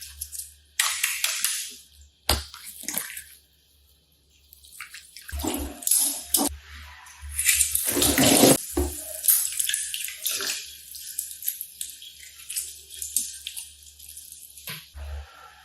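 Slime being handled: irregular wet squelching and sloshing in bursts of varying length, busiest about halfway through.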